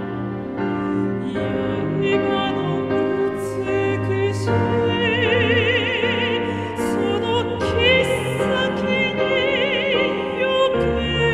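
Operatic soprano singing long notes with wide vibrato over an orchestral accompaniment.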